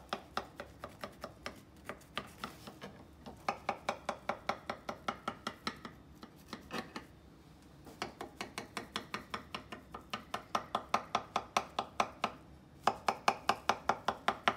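Black plastic pizza knife sawing back and forth through a baked cookie cake in a cast iron skillet, scraping against the pan, at about five quick strokes a second. The strokes come in runs with short pauses between them.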